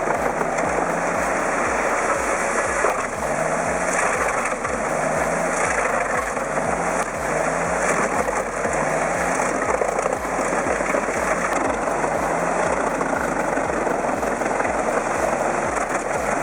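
Large truck-mounted industrial wood chipper running: a heavy engine working steadily under a continuous dense rush of chipping noise.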